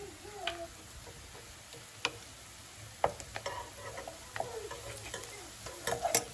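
Wooden spatula stirring and scraping chopped onion around a nonstick frying pan, over a low sizzle of the onion frying in oil. A few sharp clicks and knocks of utensils against the pan break in, with the loudest near the end.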